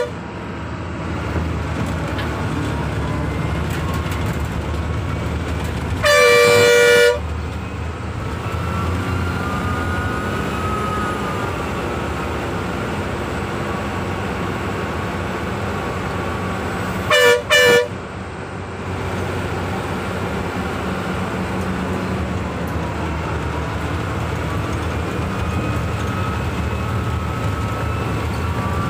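Bus diesel engine running steadily, heard from inside the cabin. The bus horn sounds once for about a second six seconds in, then gives two short toots around seventeen seconds.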